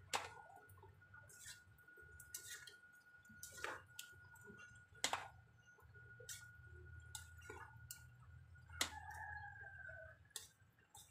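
Metal spoon stirring chopped jackfruit in an aluminium pot, giving a few sharp scattered clinks and scrapes against the pot's rim and side. A faint steady high tone runs underneath, and a short falling call sounds about nine seconds in.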